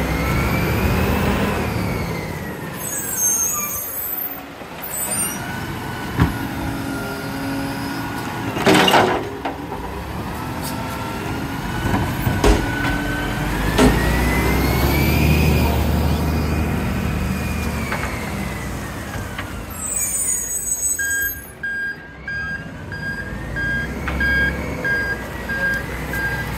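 Isuzu garbage truck's diesel engine running and revving up and down as it pulls in, stops at the bins and drives off, with the air brakes hissing twice. A loud crash about nine seconds in and a few sharp knocks, and a steady beeping about twice a second near the end.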